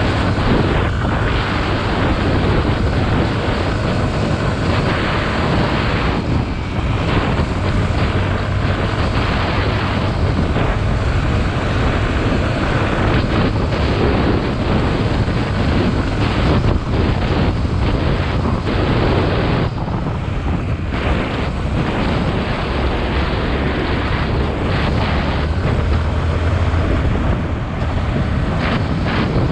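Yamaha WR155R's single-cylinder four-stroke engine running as the bike rides along, a low drone that shifts in pitch as the throttle changes, under heavy wind rush on the microphone.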